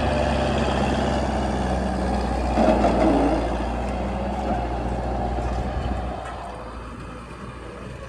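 Massey Ferguson 275 tractor's four-cylinder diesel engine running steadily as it pulls a disc harrow through scrub, with a brief louder patch about three seconds in. The sound fades from about six seconds as the tractor moves away.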